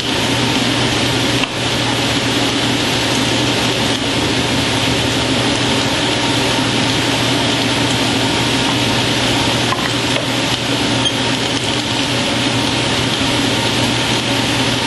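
Table saw motor and its dust collection running steadily, the blade spinning free with no wood being cut. A loud, even drone with a low hum and a few faint ticks.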